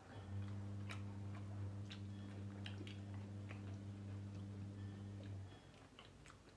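A steady, low electrical hum at one unchanging pitch, which cuts off suddenly about five seconds in. Faint, irregular small clicks run underneath.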